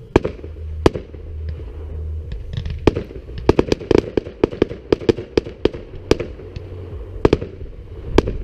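Aerial fireworks shells bursting: a string of sharp bangs and cracks, a few at first, then coming quickly, about three or four a second, in the middle, then thinning out again.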